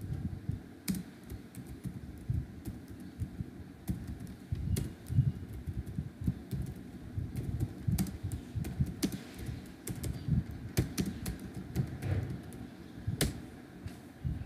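Typing on a computer keyboard: irregular key clicks, a few of them louder than the rest.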